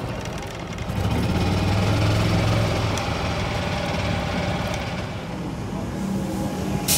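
Golf cart driving along a dirt path: a steady motor hum with rattle and wind noise. Near the end the sound drops to a steadier low hum, and a single sharp click comes just before the end.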